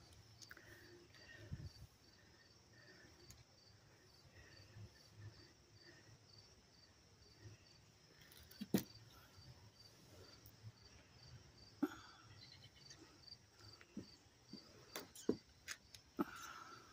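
An insect chirping steadily and faintly, about two to three high chirps a second, with a few sharp knocks and taps, the loudest about nine seconds in.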